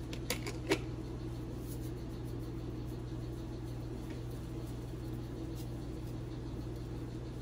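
Steady low mechanical hum, with a few light clicks in the first second.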